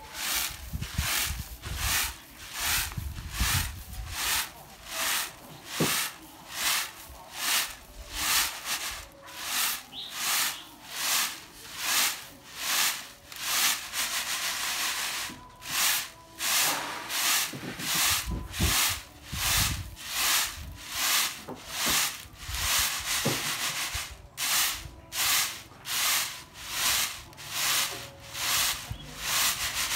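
Coffee beans swishing and rattling on a woven bamboo winnowing tray as it is shaken and tossed in a steady rhythm of about two strokes a second, separating the loose shells from the hulled beans.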